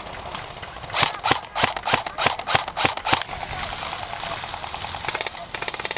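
Airsoft guns firing: a string of single sharp shots about three a second, then near the end rapid full-auto fire at an even, fast rate.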